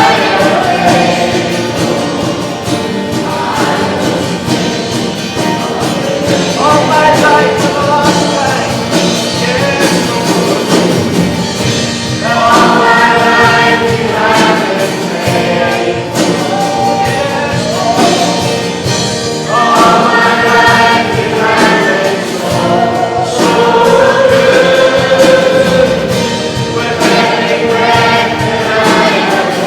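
Several voices singing a hymn together over instrumental accompaniment, in long held phrases.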